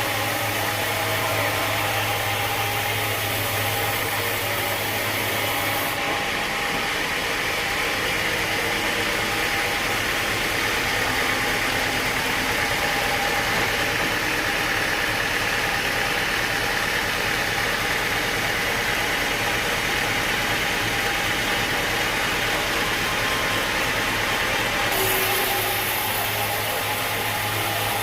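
Sawmill machinery running steadily, a continuous mechanical drone with a low hum; its character changes abruptly about six seconds in and again near the end.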